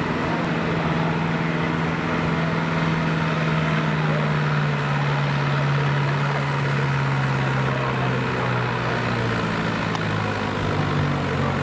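Ford 6610 tractor's turbocharged four-cylinder diesel running steadily at low revs, its pitch easing down slightly over several seconds and picking up a little near the end.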